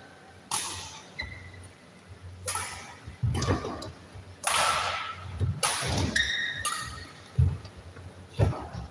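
Badminton rally: rackets striking a shuttlecock about half a dozen times, with sharp hits every second or two, between low thuds of players' feet landing on the court.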